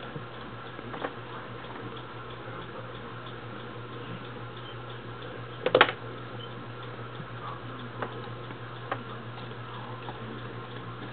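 Irregular clicks and taps of a hamster's claws and a dragged paper towel against a clear plastic habitat tube as the hamster climbs, with a louder cluster of knocks about halfway through, over a steady low hum.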